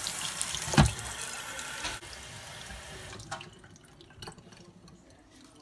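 Kitchen faucet running into a stainless-steel sink, with a sharp knock about a second in. The water stops about three seconds in, leaving a few light knocks and clicks.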